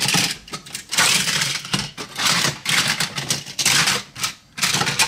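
Plastic Trackmaster toy trains clattering and knocking against each other and the plastic tub as a hand rummages through the heap, in several short bursts of rattling.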